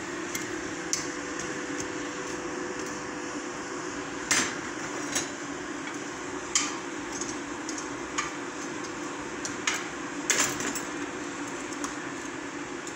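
Steady whir of the coal forge's air blower feeding the fire while iron heats toward welding heat, with scattered clinks and scrapes of a steel poker and tongs in the coals; the loudest clanks come about four and ten seconds in.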